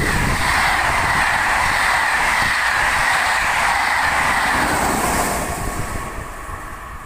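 A locomotive-hauled TER passenger train of Corail coaches passes close by at speed, with a steady rush of wheels on the rails. The noise fades away after about five seconds as the rear locomotive goes by.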